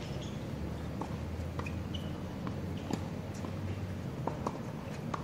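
Footsteps and scattered light taps on an outdoor hard tennis court, with a faint low hum through the first half.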